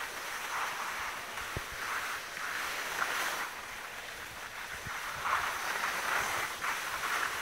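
Skis sliding and scraping over snow in swells that come and go, with wind on the microphone.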